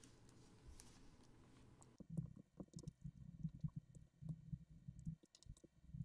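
Faint, quick clicking and light knocking of plastic LEGO bricks being pulled apart and set down on a mat, in sped-up footage, starting about two seconds in.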